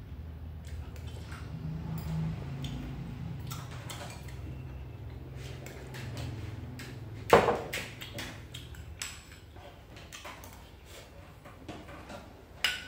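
A metal spoon clinks and scrapes in a porcelain bowl as soup is eaten. There is a sharp knock of crockery on the wooden table about seven seconds in, the loudest sound, and another knock near the end.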